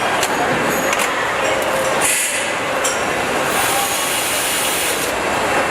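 Steady mechanical din of factory machinery, with metallic clinks and short hissing bursts.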